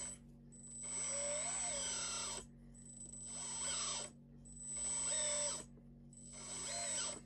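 The small electric hydraulic pump of a 1/14-scale LXY SM870 RC tracked loader starts and stops about four times, each run lasting a second or two, as the loader's arm and grapple are worked. It runs with a whine that rises and falls in pitch. The pump is mixed to switch on automatically whenever the arm functions are used.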